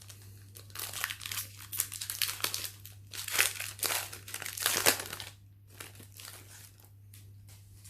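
Foil booster-pack wrapper crinkling and crackling as it is torn open, loud for about four seconds, then dying down to faint rustles.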